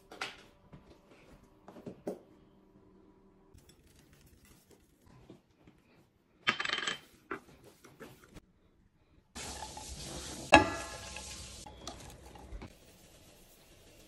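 Kitchen prep sounds: scattered light clinks and taps of dishes, a brighter clatter about six and a half seconds in, then a noisy stretch with one loud, ringing metallic clank of cookware about ten and a half seconds in.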